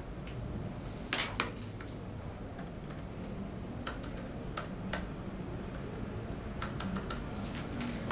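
Sparse, irregular key taps of typing, a dozen or so short clicks in small clusters, over a steady low background hum.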